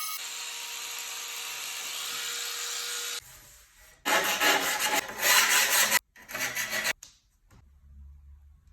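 Power tool cutting or drilling into porcelain stoneware tile: a steady run for about three seconds, then after a short lull two loud, rough stretches that stop abruptly about seven seconds in.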